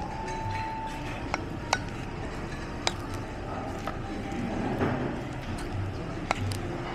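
Wooden rice paddle stirring and scraping cooked rice in a metal kamameshi pot, knocking against the pot with a few sharp clicks.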